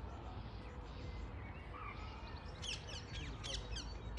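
Birds chirping over a steady low outdoor rumble; from about two and a half seconds in, a quick run of high, falling chirps.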